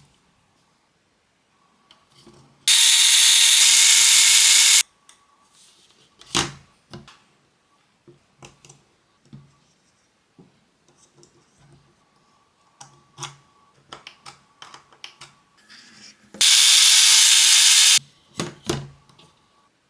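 Two loud, steady hisses, one of about two seconds and one of about a second and a half, with small clicks and knocks between them.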